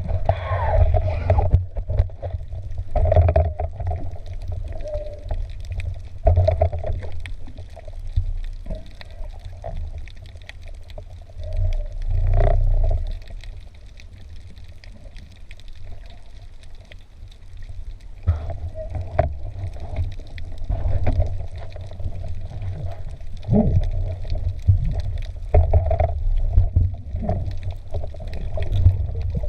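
Muffled water noise from a camera in an underwater housing: a constant low rumble with a wavering mid-pitched hum and scattered clicks and knocks.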